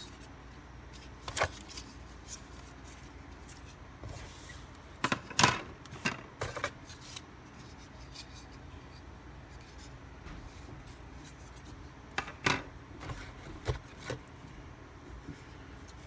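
Plastic doorbell faceplate covers and packaging being handled: scattered light clicks and rubbing, in small clusters separated by quiet stretches.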